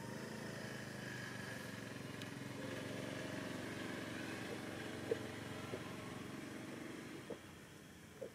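A motor vehicle engine running steadily, growing a little louder through the middle and fading away toward the end as if passing by. A sharp click about five seconds in and a few fainter ticks later.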